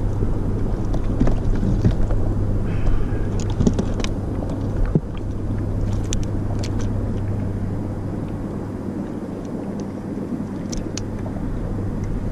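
A motorboat engine drones steadily with a low hum, easing off for a few seconds in the second half. Light clicks and taps of fishing tackle sound as the shark is unhooked.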